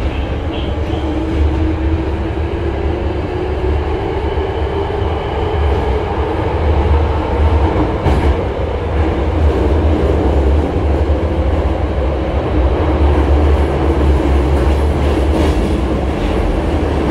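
Interior running sound of a Hankyu 5300 series resistance-controlled electric train pulling out of a station into a tunnel: a steady deep rumble of motors and wheels on rail that grows a little louder over the first few seconds, with a sharp click about eight seconds in.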